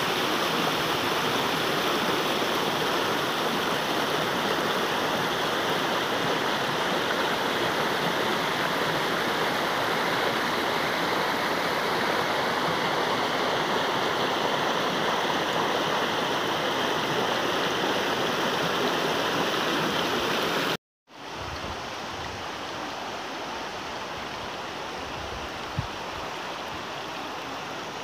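Steady rush of running river water. It cuts out abruptly about three-quarters of the way through, returns somewhat quieter, and a single faint click follows a few seconds later.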